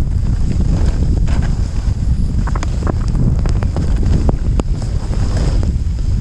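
Wind buffeting the camera microphone in a blizzard on a downhill run: a loud, steady low rumble with scattered sharp clicks and knocks.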